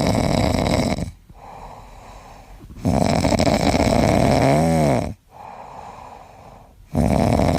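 Loud snoring: long snores of about two seconds, coming roughly every four seconds, with quieter breathing between them.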